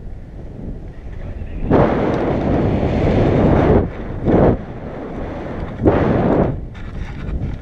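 Wind buffeting the microphone of a pole-mounted camera in paragliding flight, a steady rumble that surges in gusts: a long one about two seconds in, then shorter ones at about four and a half and six seconds.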